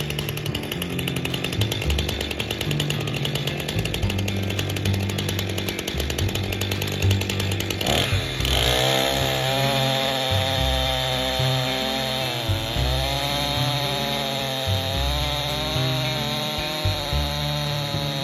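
Stihl two-stroke chainsaw running at high revs. About eight seconds in its pitch drops and then climbs, and it wavers up and down as the saw works in a cut.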